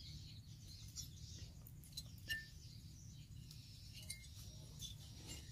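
Faint handling sounds: a few light clicks and taps as a motorcycle cylinder block is turned over in the hands, over a steady low background hum, with a faint short bird chirp.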